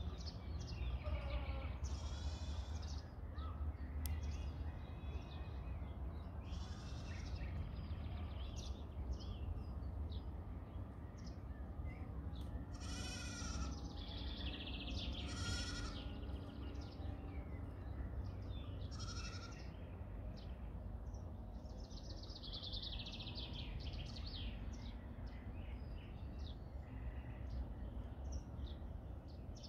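Goats bleating now and then, about half a dozen separate calls, the loudest near the middle, over a steady low rumble.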